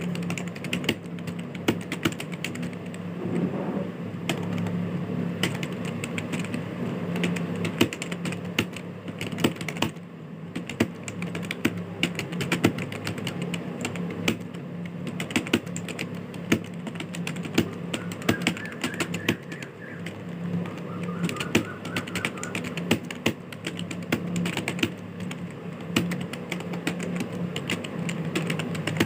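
Fast, continuous typing on a computer keyboard: rapid, irregular keystroke clicks over a steady low hum.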